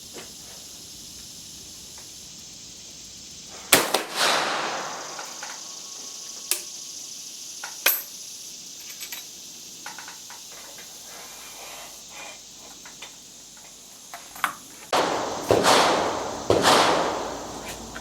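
Rifle shots from an Austrian Werndl single-shot breech-loader, each crack followed by a long echo rolling away. One loud shot comes about four seconds in, a couple of smaller sharp cracks follow, and three more shots come close together near the end.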